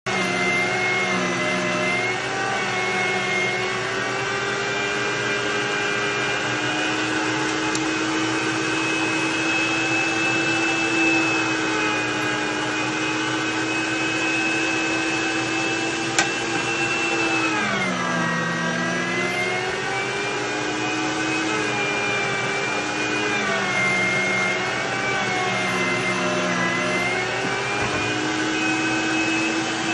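A small electric motor running steadily with a whine, its pitch dipping and recovering a few times, most deeply about 17 seconds in.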